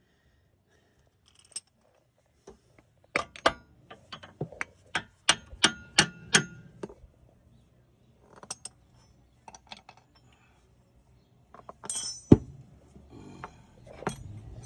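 Hammer blows on metal driving a car part into place: a quick run of about a dozen sharp, ringing strikes about three seconds in, then scattered lighter taps and clinks, and one heavy knock near the end.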